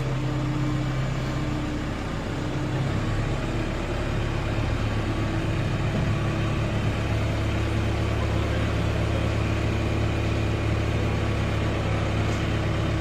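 A heavy machine's engine running steadily, its low drone shifting in pitch about two to three seconds in, then holding.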